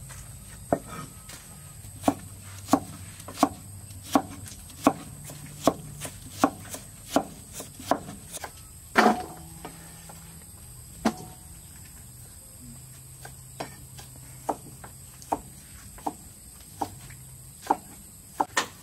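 Cleavers chopping watermelon rind on wooden chopping boards: sharp knocks of the blade striking the wood, about one and a half a second, with one louder knock about nine seconds in, then slower and more spaced.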